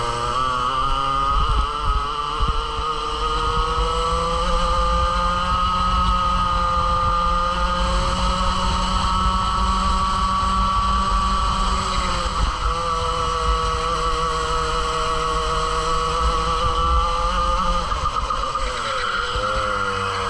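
Onboard sound of a Club 100 kart's two-stroke TKM engine at racing revs. Its pitch climbs over the first few seconds as the kart accelerates, holds high, dips briefly around twelve seconds in, then falls as the kart slows for a corner near the end and starts to rise again. A low wind rumble on the mic sits underneath.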